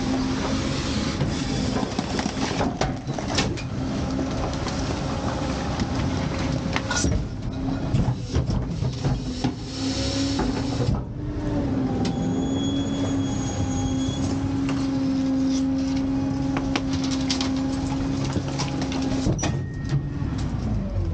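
McNeilus rear-loader packer on an Autocar truck running its hydraulic compaction cycle. There is a steady drone from the truck's engine and hydraulic pump, and metal clanks and scrapes as the sweep panel and packer blade sweep the hopper and push the garbage into the body. The drone dips in pitch about halfway through as the cycle changes stroke, then holds steady again.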